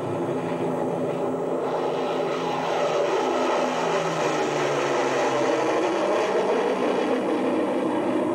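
Propeller aircraft engines droning steadily, with a slowly wavering pitch that grows a little louder about three seconds in.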